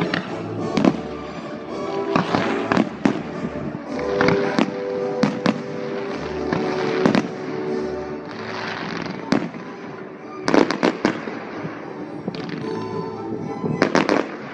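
Fireworks shells bursting in a run of sharp bangs and crackles, with a quick cluster of bangs about ten and a half seconds in, over music played with the display.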